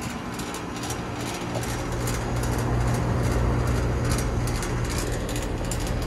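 Rheem Classic 5-ton central air conditioner condensing unit running: a steady low hum of the compressor with fan noise, getting louder about a second in as the unit is neared.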